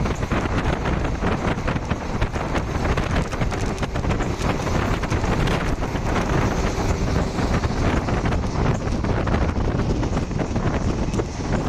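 Wind noise on the microphone over the steady running noise of a moving express passenger train.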